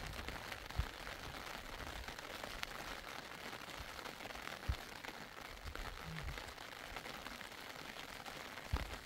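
Steady hiss of rain, broken by three dull low thumps: about a second in, near the middle and near the end.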